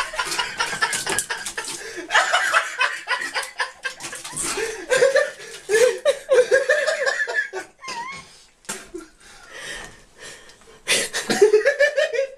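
A person laughing hard in repeated bursts, easing off partway through and breaking out again near the end, with scattered clicks and knocks.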